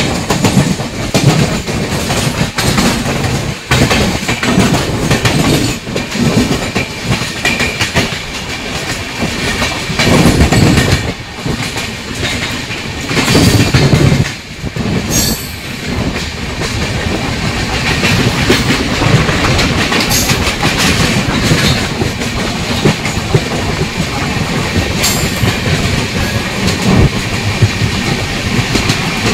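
Express passenger train running at speed, its wheels clattering over rail joints in a steady rhythm under loud rushing noise, with louder swells about ten and thirteen seconds in.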